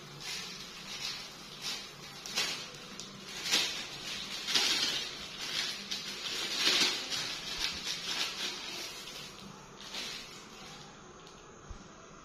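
Hands working a bait mixture by hand: irregular rustling, swishing strokes, louder in the middle and easing off near the end.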